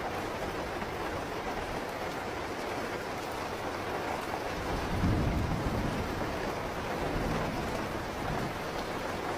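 Steady rain falling, with a low roll of thunder swelling about five seconds in and fading away over the next few seconds.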